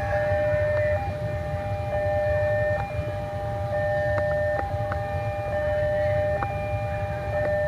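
Railway level-crossing warning alarm sounding steadily in two tones, the lower tone breaking off and resuming about once a second, over a low rumble.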